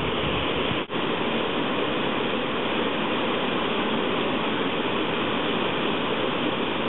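Steady rush of whitewater in river rapids at a waterfall, with a momentary dropout about a second in.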